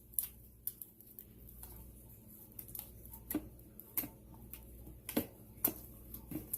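Slime being squeezed and jiggled by hand, giving irregular sharp wet clicks and pops, about one or two a second.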